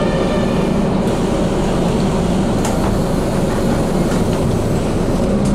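Steady running noise inside a city bus cabin, with a tram passing close alongside on its track.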